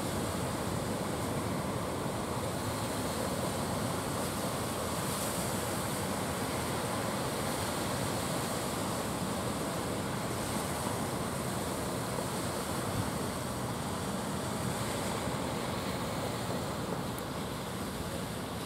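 Rough sea surf breaking and washing, with wind buffeting the microphone: a steady rush of noise.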